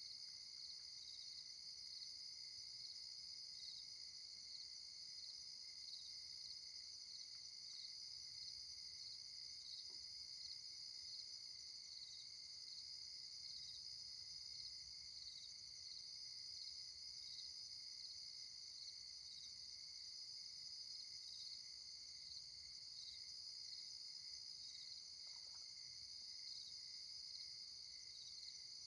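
Faint, steady chorus of night insects such as crickets chirping high and pulsing evenly, with a faint low rumble underneath.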